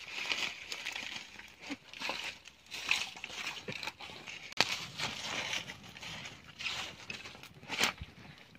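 A small fire of dry leaves and twigs crackling as it catches, with the leaves rustling and crinkling, and two sharp snaps, one about halfway through and one near the end.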